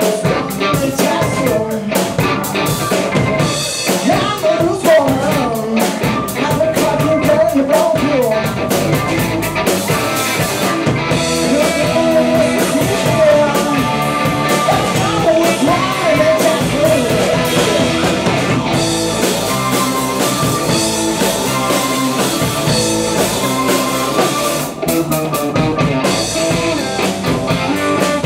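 Live blues-rock band playing a song on electric guitars and drum kit, with a man singing over it.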